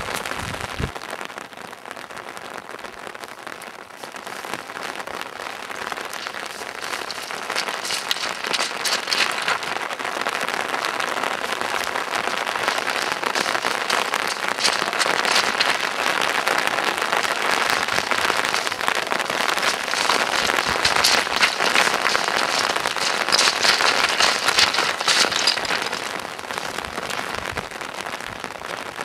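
Rain pattering, a dense crackle of many small hits that swells a few seconds in and eases near the end.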